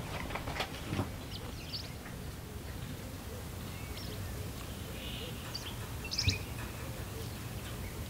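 Faint, short high-pitched chirps scattered through, over a low steady hum, with a few soft knocks near the start and a louder one about six seconds in.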